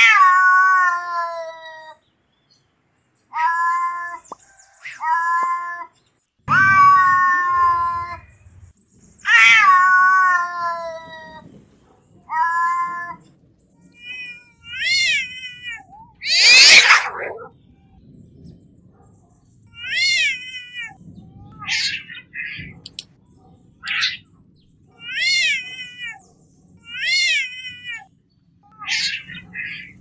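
Domestic cats meowing: a string of separate meows of varying length, opening with a long falling meow, with one harsher, noisier call a little past the middle and a run of short meows about a second apart near the end.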